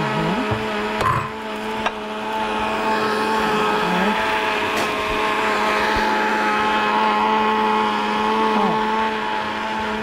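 Electric countertop blender running steadily, blending a liquid cake batter of eggs, milk, sugar and melted ghee, with a couple of light knocks about a second and two seconds in.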